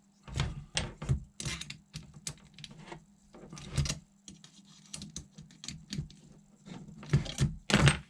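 Irregular sharp clicks and taps of small screws, a driver and hard plastic parts being handled while the shock mounts of an RC buggy kit are screwed on, with a few louder knocks near the end.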